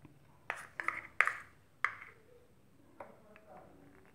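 A metal spoon clinks against metal cooking vessels while cocoa cake batter is spooned out: several short, sharp, slightly ringing clinks in the first two seconds, then a fainter knock about three seconds in.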